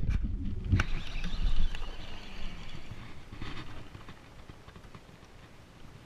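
Handling noise right at the camera: rubbing and knocks as an arm brushes the lens and gear is moved about in an aluminum jon boat. There is one sharp knock about a second in, then a low rumbling rub that dies away.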